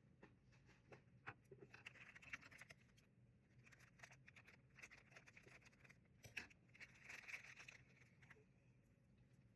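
Faint rustling and small clicks of blind-box packaging and small plastic pieces being handled, in a few short spells.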